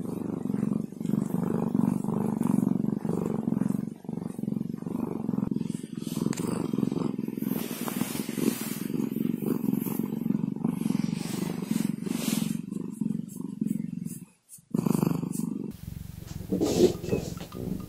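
Domestic cat purring steadily, close to the microphone, while its belly is rubbed, with soft rustling of fur and bedding. The purr breaks off about fourteen seconds in, and music takes over near the end.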